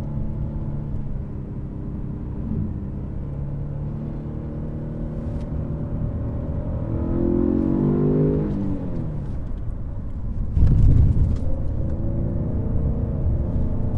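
2017 Ford Fusion Sport's twin-turbo V6 running under hard driving over low road and tyre rumble; in the middle the revs climb and then fall away. Later a brief heavy low rumble is the loudest moment.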